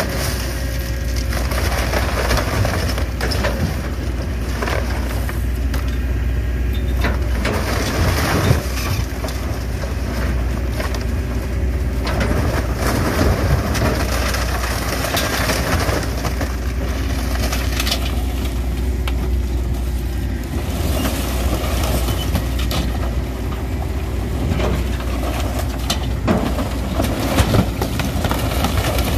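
Hydraulic excavator tearing apart a motorhome: irregular crunching, cracking and splintering of the RV's wood framing and siding over the steady drone of the excavator's diesel engine, with a few louder bangs scattered through.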